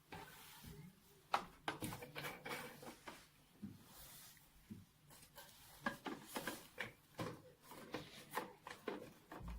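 Hands handling plastic reagent tubing and fittings, making irregular small clicks, taps and rubbing sounds as the lyse line is fitted.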